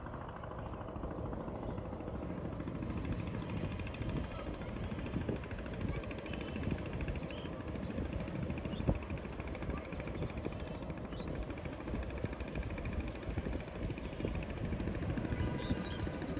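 Steady low rumble of outdoor background noise, like distant traffic or engines, with a few faint high chirps now and then.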